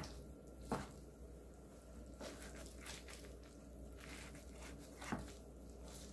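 Kitchen knife cutting soaked wakame seaweed on a wooden cutting board: faint, irregular knife strokes a second or so apart, the loudest right at the start and about five seconds in.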